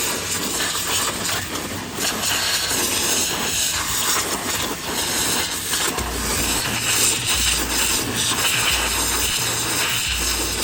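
Pressure washer spray hissing steadily against the machine. About six seconds in, a deep bass beat of about one note a second comes in under it.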